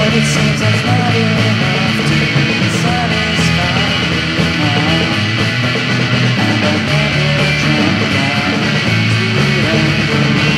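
Recorded indie pop song playing, guitar-band music over a steady bass, with no words heard.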